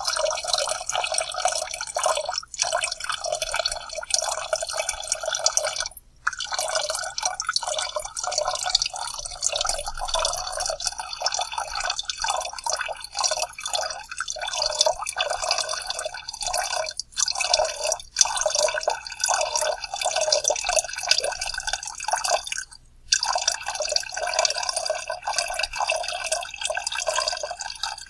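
Soda being poured out in a continuous splashing, gurgling stream. The stream breaks off briefly twice, about 6 and 23 seconds in.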